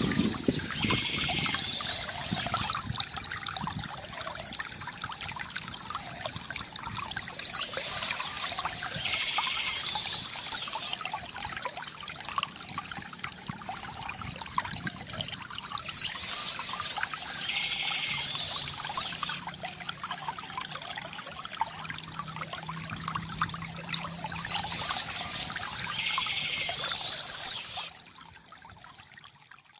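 Shallow stream trickling and gurgling over stones, a steady wash of water with a brighter splashing stretch that comes back about every eight seconds. It drops off sharply near the end.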